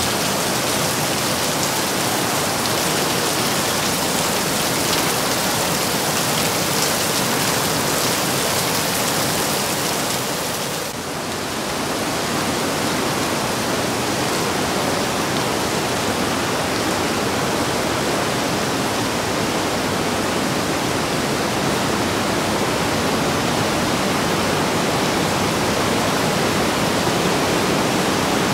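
Steady rushing and splashing of the Breitach river in a narrow rock gorge, with water pouring off the overhanging cliffs onto the path. A bright, rain-like hiss drops away abruptly about a third of the way in, leaving the fuller rush of the river.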